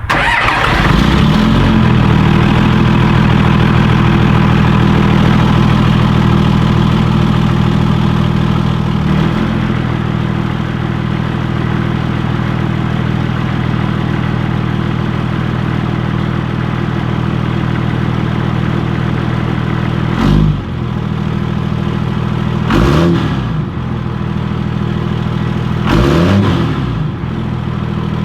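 Cummins turbo-diesel engine of a 2001 Dodge Ram 2500 running steadily as the truck drives. Three times in the last third its revs briefly drop and pick up again, as with gear changes through the newly fitted NV4500 manual gearbox.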